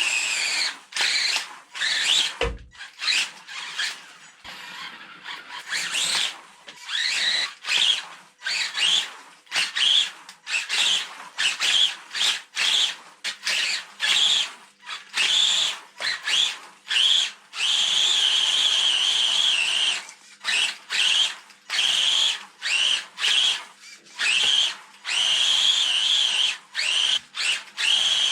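Electric motor and belt drive of a 1/10 Tamiya TA06 RC car whining in short bursts, the pitch rising and falling as the car speeds up and slows, with longer steady runs in the second half.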